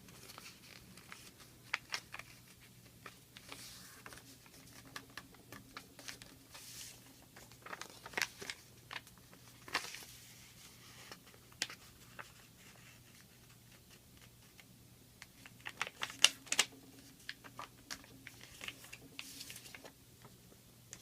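Sheet of paper being folded and creased by hand into a paper airplane's wings: scattered soft crinkles and rustles, busiest twice, with a faint steady hum underneath.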